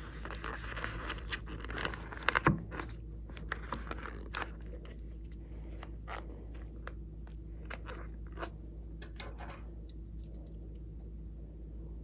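Slime-filled rubber balloon squeezed and kneaded in the hands: crackly rubbing and scraping of the rubber, densest in the first few seconds, with a few sharp louder clicks a little after two seconds in, then thinning to scattered clicks.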